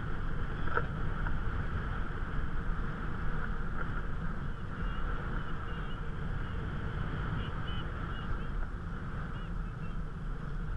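Wind rushing over the microphone and water noise while riding a kite hydrofoil, with a steady high-pitched whine running through it.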